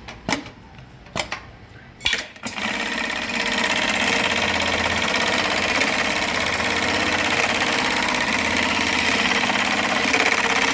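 Brother LK1920HA computer-controlled pattern sewing machine stitching a seatbelt box pattern. It runs steadily for about eight seconds, after a few sharp clicks in the first couple of seconds.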